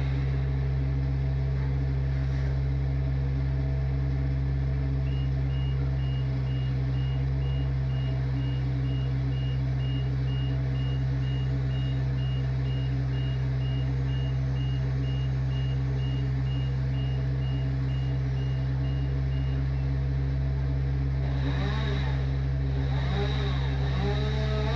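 Engine running steadily with a deep, even drone. From about five seconds in, a rapid high-pitched electronic beep repeats for about fifteen seconds, then stops.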